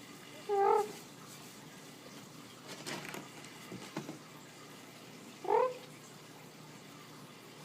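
A cat meows twice, short calls about five seconds apart, with some soft rustling and handling noise between them.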